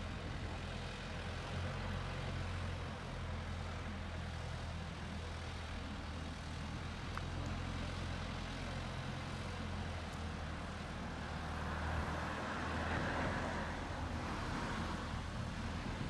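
Diesel engine of an aircraft tow tractor running steadily as it tows a parked seaplane out of its hangar, a low, even hum with a faint rise in hiss a few seconds before the end.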